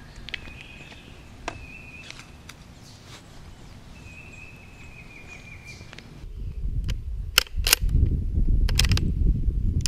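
Faint high chirping calls over a quiet background, then louder low handling rumble and a handful of sharp metallic clicks from the Marlin .22 rifle being handled close to the microphone, a few seconds from the end.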